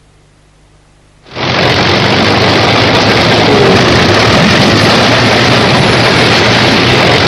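Jet noise from a Martin B-57 Canberra bomber: it starts abruptly about a second in and then holds as a loud, steady rush with no clear pitch.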